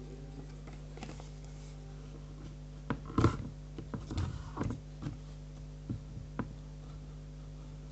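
Paper being handled and pressed down on a table while its edges are glued: scattered knocks and rustles, the loudest cluster about three seconds in, over a steady low hum.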